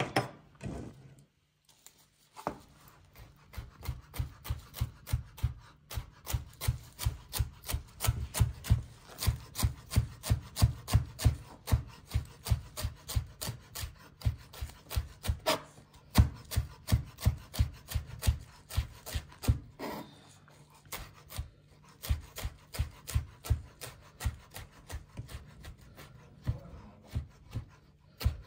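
Chef's knife chopping fresh green herbs on a plastic cutting board: rapid, regular knife strikes, about three to four a second, with a few short pauses.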